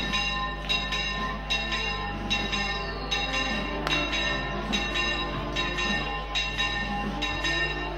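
Church bells pealing in a quick, uneven festive ring (repique), about two strikes a second, each strike leaving a ringing tail.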